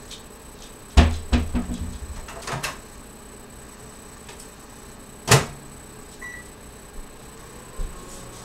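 Kitchen clatter at a microwave oven: a loud knock with a quick run of clacks about a second in, more clacks a moment later, then a single sharp clack of the microwave door about five seconds in, followed by a short faint beep.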